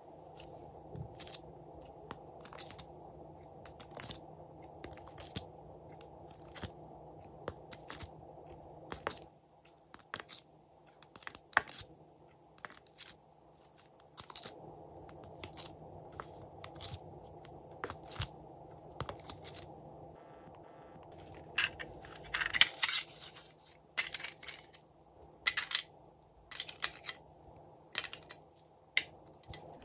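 Plastic ice cube tray being handled and flexed, giving irregular sharp clicks and crackles as fingers press on its cells to pop out the set contents. A short, louder rustling scrape comes about two-thirds of the way through.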